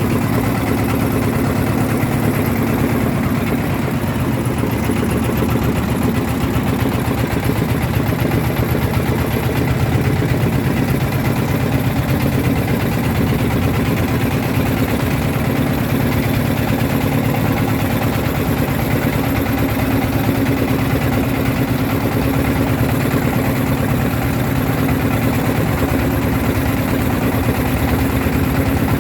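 Motorboat's engine running steadily at an even speed, a constant low drone.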